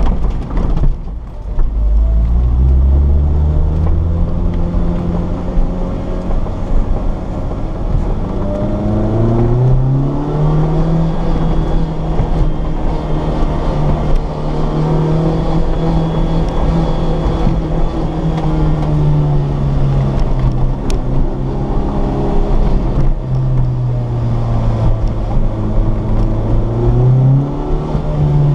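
Lotus Exige's engine heard from inside the cabin while driving, pulling up in pitch about two seconds in and again about ten seconds in, holding a steady speed, then easing off and picking up again near the end, over constant low road noise from the rough pavement.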